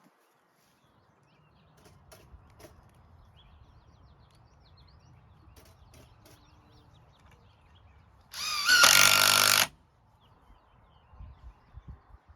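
Power drill spinning up with a rising whine and then running for about a second and a half while drilling a hole into the split wooden footing.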